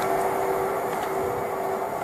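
Greater Anglia Class 720 electric multiple unit running away along the track: a steady whine from its motors over the rumble of the wheels, slowly fading.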